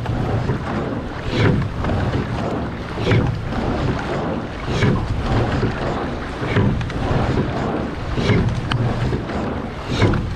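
Men's pair rowing shell under way: water rushing past the hull and wind on the microphone, with a short splash and knock from the oars at each stroke, about one stroke every 1.7 seconds.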